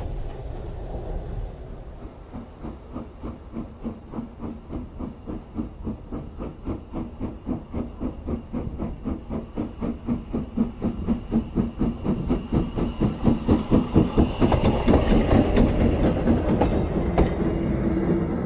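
Austerity 0-6-0 saddle tank steam locomotive working a train, its exhaust chuffing in an even beat that quickens and gets louder, with the train rumbling past near the end.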